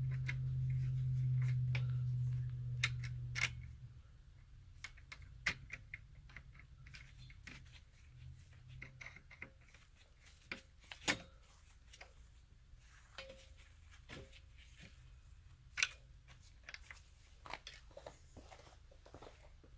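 Scattered small clicks and ticks of a screwdriver and stiff copper wire being handled at the terminals of an electrical disconnect. A low steady hum runs for the first three or four seconds, then stops.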